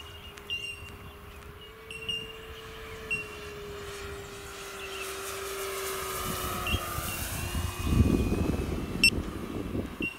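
Large electric RC P-47 Thunderbolt model in flight, its 360 kV electric motor and four-blade 17x10 propeller giving a steady whine that swells and bends in pitch as the plane passes. A rush of noise builds to its loudest about eight seconds in.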